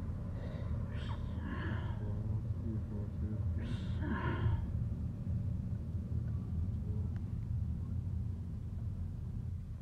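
Steady low rumble of a car driving, heard from inside the cabin, with two short breathy vocal sounds from a person, about a second in and again near four seconds.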